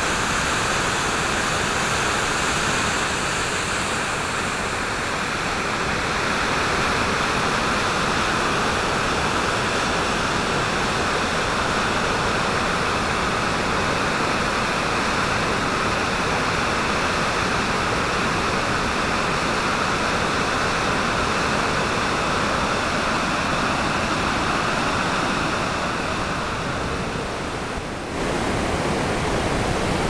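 Overflow water from a dam's spillway pouring down a rock slope into the river below: a loud, steady rush of white water.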